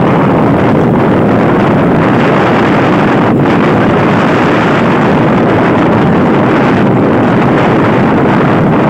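Loud, steady wind rush on the microphone of a phone carried on a moving motorcycle, with the motorcycle engines running beneath it.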